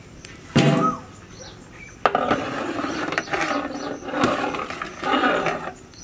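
A long metal ladle stirring and scraping a thick meat-and-lentil mixture in a large metal cooking pot, starting with a clank about two seconds in and going on in several strokes. Before that, one short animal call, rising then falling.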